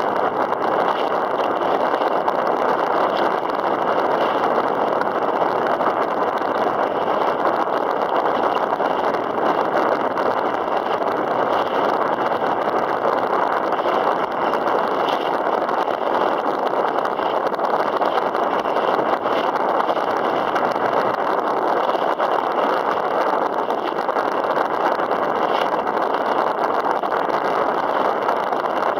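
Wind buffeting the microphone over choppy sea water washing against a kayak: a steady rushing noise, with small splashes every second or two.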